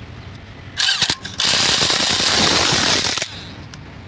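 Corded electric impact wrench running on the bolts of a Tata truck differential's crown wheel: a short burst about a second in, then a longer run of about two seconds that stops a little after three seconds.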